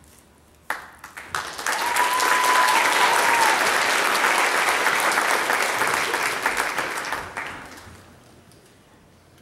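Audience applause that starts suddenly about a second in, holds full for several seconds, then dies away near the end. One long whistle is heard within it, about two seconds in.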